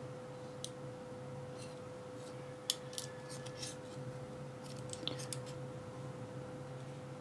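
Small sharp metallic clicks and ticks, a few at first and then a cluster in the middle, as driver pins and springs are taken out of a Ruko oval lock cylinder. A faint steady hum runs underneath.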